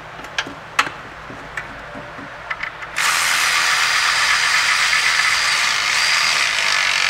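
Cordless electric ratchet running steadily for about four seconds, snugging up an alternator mounting bolt. Before it starts, a few light metal clicks as the socket and extension are set in place.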